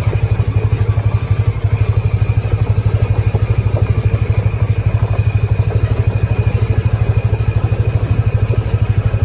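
A vehicle's engine running steadily close by, with a low, even, rapid pulsing note that does not change.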